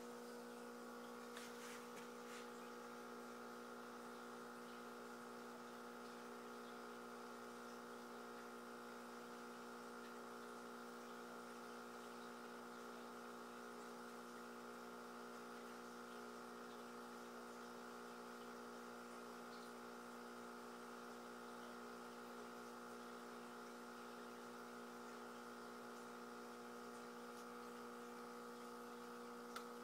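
Faint steady electrical hum: several steady tones held without change, with no other sound over it.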